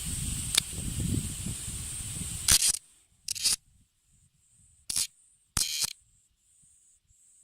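Male bear cicadas (Cryptotympana facialis): a steady high cicada buzz over low rumbling noise for the first couple of seconds. After an abrupt drop, a handled cicada gives three short, harsh buzzes, the distress call of a caught male, while another calls faintly in a pulsing rhythm about two and a half times a second.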